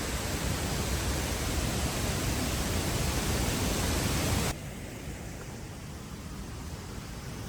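Steady rushing outdoor noise with no pitch or rhythm, which drops abruptly to a quieter hiss about four and a half seconds in.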